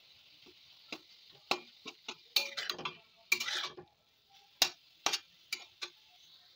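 Metal spatula scraping and knocking against a metal kadai while stirring and breaking up softened pineapple pieces. It makes a series of sharp clicks and scrapes, busiest in the middle, over a faint steady hiss.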